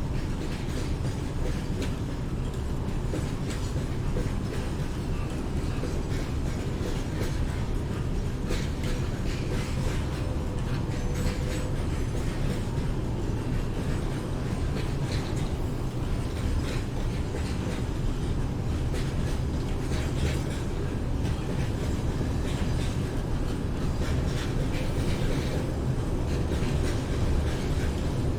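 A train running on city rails below: a steady low rumble with scattered faint clicks of wheels over the rail joints.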